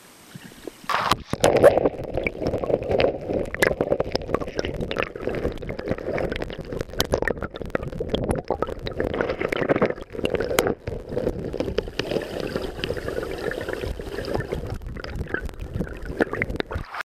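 Stream water rushing and gurgling, heard muffled through a camera held underwater, with many small clicks and knocks. It starts about a second in and cuts off suddenly near the end.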